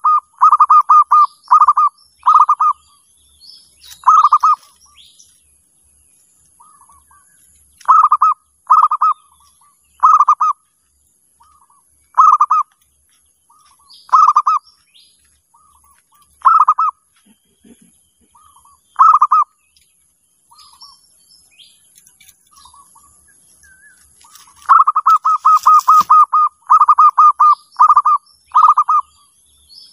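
Zebra dove (perkutut) cooing: short phrases of quick stuttering notes come every second or two, with a longer rapid run of notes near the end. Small birds chirp faintly above it.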